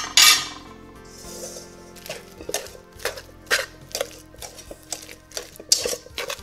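Wire whisk mashing soft banana pieces in a stainless steel bowl, its wires clicking against the metal about twice a second. A loud clink sounds right at the start.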